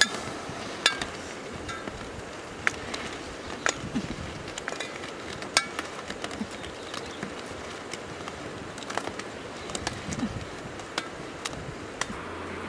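Boiled goose eggs clicking and knocking against one another and the metal wok as they are scooped into a wicker basket: short sharp clicks, about one every second or so, over a steady background hiss.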